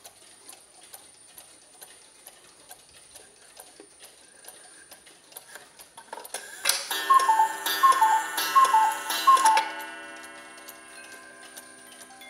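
Mechanical Black Forest chalet cuckoo clock ticking steadily. Then, with its minute hand pushed round by hand, the cuckoo calls four times, each a falling two-note call over the hiss of the bellows, leaving ringing tones that fade away.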